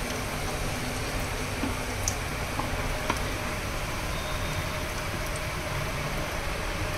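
Gaula batter sizzling on a hot ghee-greased iron tava over a gas burner: a steady hiss with a low rumble underneath and a few faint clicks.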